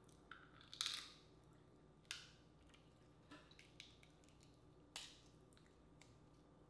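Dungeness crab shell cracking as hands break apart sauced crab legs: three sharp cracks, the loudest about a second in, others near two and five seconds, with a few faint clicks and wet squishes between.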